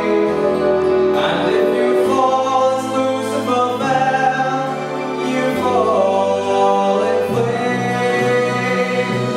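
A young male voice singing a slow ballad melody with long held notes into a microphone, over a recorded orchestral backing track whose bass moves in slow steps.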